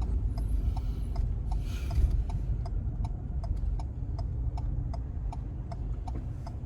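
Car hazard-light flasher ticking steadily, about two to three clicks a second, over the low rumble of the engine and tyres inside the cabin.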